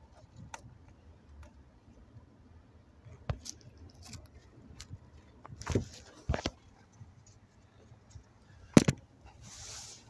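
Scattered clicks and knocks of hands working plastic wiring connectors and trim under a car's dashboard, the loudest a sharp double knock near the end, followed by a brief rustle.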